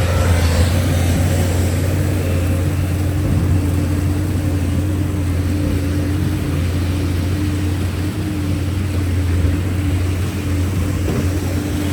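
Heavy machine engine running steadily at a constant low hum, with a rushing noise behind it.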